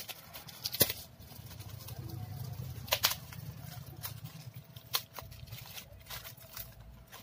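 Hands handling a laptop keyboard and plastic parts: a few sharp clicks and taps, scattered irregularly, over a low steady hum.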